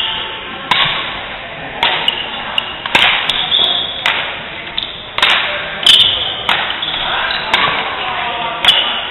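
Badminton rally: racquets striking the shuttlecock about once a second, each hit a sharp crack that echoes in the hall, with short high squeaks after several of the hits.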